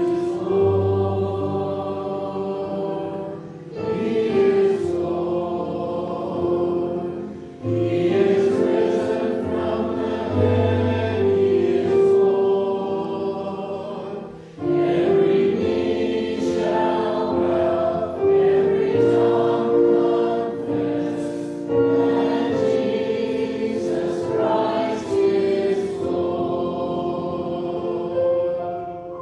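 Choir singing with accompaniment, slow phrases of long held notes with short breaks between them.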